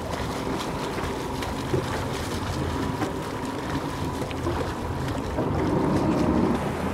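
Escort boat's engine running steadily at slow speed, heard under wind on the microphone and choppy sea water, swelling a little near the end.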